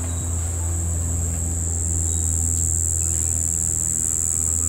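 A steady, high-pitched insect drone, held at one pitch without a break, over a steady low rumble.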